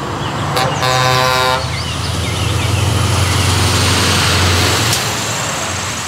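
Scania semi-truck sounding its horn once, briefly, about a second in, then its diesel engine and tyres rumbling as it drives past. Birds chirp in the background.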